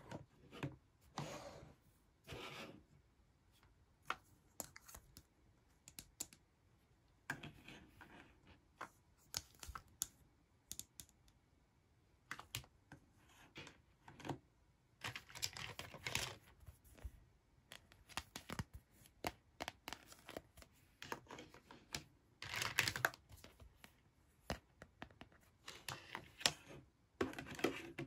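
Small plastic toy tea cups, teapot and saucers clicking and tapping as they are picked up and set down on a table, in many light irregular taps. A few longer plastic scraping and rustling passages come in the middle and near the end.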